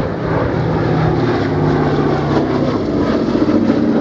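Boeing B-17 Flying Fortress's four Wright Cyclone radial piston engines droning loudly as it flies by. The pitch shifts a little partway through.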